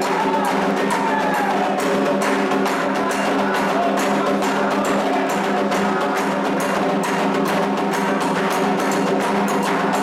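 A Candomblé percussion ensemble of atabaque hand drums plays a fast, dense, unbroken rhythm: the toque for Ogum.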